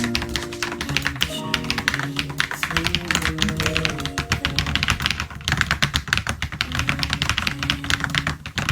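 Rapid typing on a Zoom75 Tiga mechanical keyboard, a dense run of keystroke clacks, over background music.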